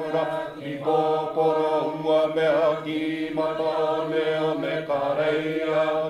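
Background music: a chanting voice holding long, wavering notes in phrases over a steady low drone.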